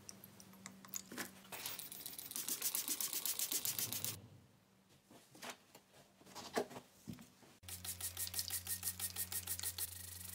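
Hand-pumped trigger spray bottle squirting in quick repeated pulls, each one a short hiss. There are two fast runs, one early and one in the second half, the second over a steady low hum, with a few clicks in the quieter gap between them.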